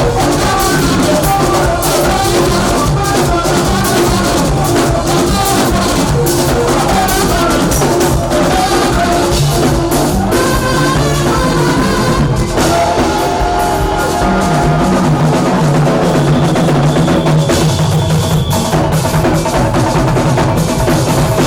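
Loud live band music with a full drum kit (bass drum, snare and rimshots) under keyboard or guitar lines; the music shifts to a new pattern about halfway through.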